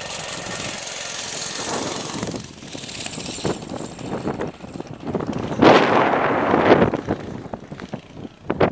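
A vehicle moving fast on an asphalt road: steady wind hiss on the microphone, then an irregular rattle and rumble that is loudest about six seconds in.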